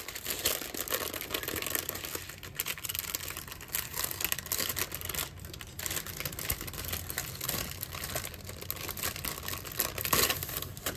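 Clear cellophane bag crinkling and rustling as hands open and fold it, a dense run of small crackles.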